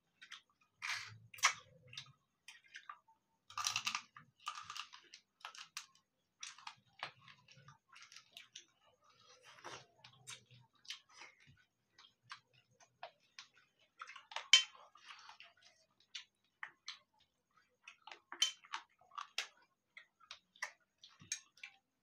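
Eating by hand: chewing and mouth smacks, with fingers mixing rice and curry on stainless steel plates, heard as many short, irregular clicks and smacks.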